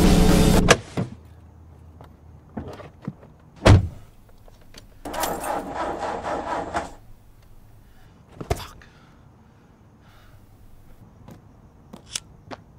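Background music cuts off less than a second in. After it come scattered handling sounds inside a car: a heavy thump, a rustling scrape lasting almost two seconds, another knock, and two short sharp clicks near the end.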